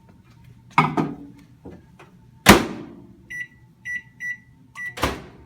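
Microwave oven in use: the door knocks and bangs shut, the oven gives four short high beeps, and the door clunks again near the end.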